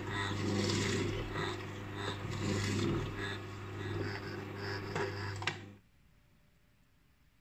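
Electric juicer running with a steady motor hum, crunching as beetroot and apple pieces are fed in and pressed. It cuts off suddenly about six seconds in.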